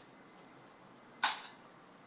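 Quiet room tone with one short, sharp noise a little past a second in, fading quickly.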